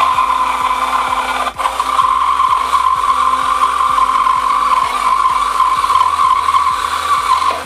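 Cordless drill spinning a mini high-speed-steel circular saw blade on a mandrel, cutting into a thin wooden strip: a steady high whine that dips briefly about a second and a half in and stops near the end.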